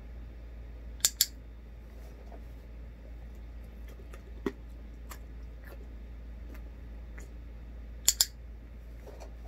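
Dog-training clicker sounding twice, each a sharp double click (press and release), about a second in and again about eight seconds in, marking the moment the dog rests its chin in the hand; a few faint ticks and a soft knock fall in between.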